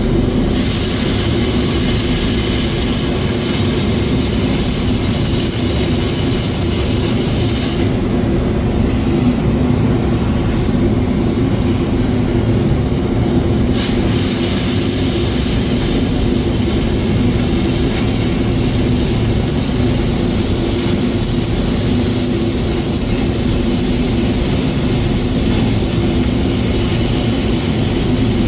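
Steady, loud machinery noise: a low rumble with a constant hum and a hissing upper layer that drops out for about six seconds a third of the way in, then returns.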